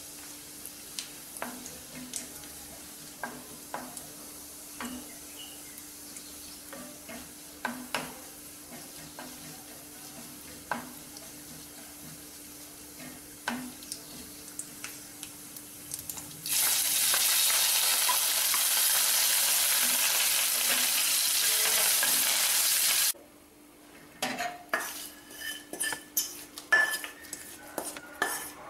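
Cashews and cumin seeds frying in hot oil in a non-stick kadai: a low sizzle with a wooden spoon tapping and scraping the pan. About two-thirds of the way through comes a much louder sizzle lasting about six seconds, which cuts off suddenly. Near the end a spoon knocks and clinks against a pot while the tempering is stirred into the pongal.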